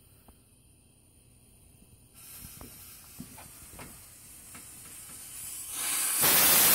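A burning fuse sputters with a faint hiss and scattered crackles from about two seconds in. Near the end the homemade potassium-nitrate-and-sugar rocket motor in a PVC pipe ignites with a loud rushing hiss.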